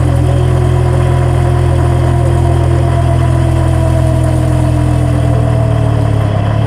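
Vehicle differential with one or more broken ring-gear teeth, running under drive. It makes a loud, steady mechanical drone with a whine that falls slightly in pitch. This is the sign of damaged ring-gear teeth.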